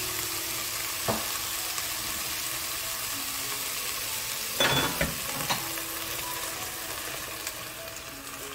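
Diced onion, carrot and chicken breast sizzling steadily in a pot with a little oil. A sharp click comes about a second in, and a short clatter about four and a half seconds in.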